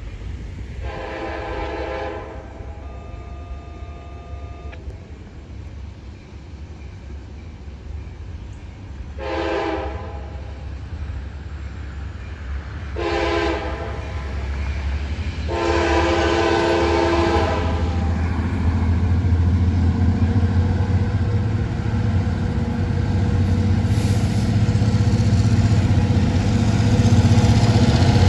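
Diesel locomotive air horn sounding a chord in four blasts: a longer one, two short ones, then a longer one. After that the locomotive's low engine rumble grows steadily louder as the train approaches.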